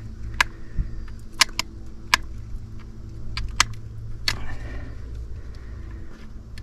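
A steady low motor or engine hum, with sharp clicks and taps scattered through it, about eight in all.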